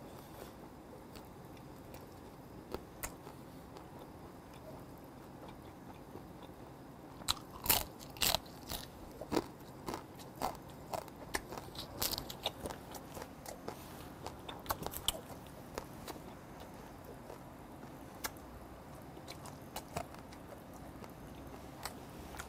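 A man eating crab up close: chewing and sucking, with many sharp crunches and clicks of crab shell, thickest between about seven and sixteen seconds in.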